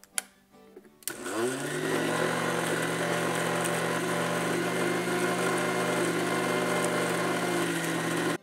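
Food processor with a click as its lid is clamped, then the motor starts about a second in, spins up quickly and runs steadily, grinding roasted spices, chillies, ginger, garlic, vinegar and shrimp stock into a smooth paste. It cuts off suddenly at the end.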